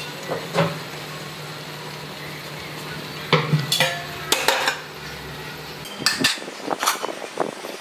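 Metal cookware and utensils clinking and knocking in short clusters, over a steady low hum that stops about six seconds in.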